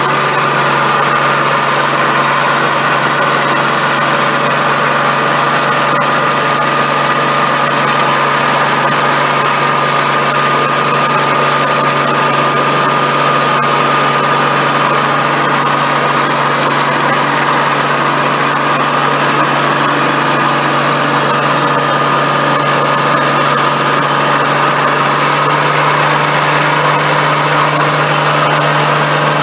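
The diesel engine of a Sides Renault 4x4 forest fire engine running steadily, driving its fire pump while the roof monitor throws a long water jet. A constant whine sits over the engine, along with an even rush of spray.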